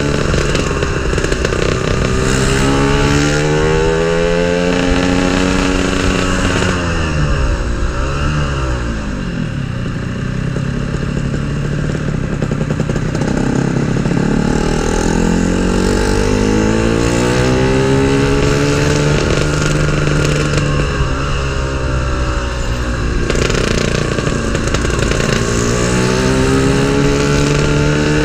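Yamaha RX-King's single-cylinder two-stroke engine on a road test after a gearbox repair, its note rising and falling several times as the throttle opens and closes through the gears.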